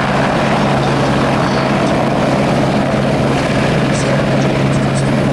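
An aircraft running close by: a loud, steady drone with a constant low hum that holds level throughout.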